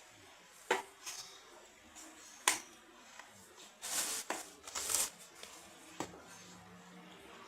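A spoon stirring homemade plasticine dough in a wok: scattered sharp taps of the spoon on the pan, with two longer scrapes about four and five seconds in.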